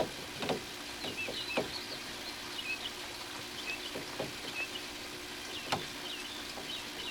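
A handful of short knocks and taps as a length of PVC drain pipe is handled and pushed into its friction-fit fittings, with small birds chirping throughout.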